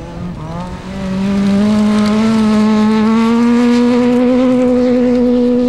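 Honda Civic Type R rally car's four-cylinder engine at full throttle as the car passes close. The revs climb about a second in and then hold high, the pitch still rising slowly, until the sound cuts off suddenly at the end.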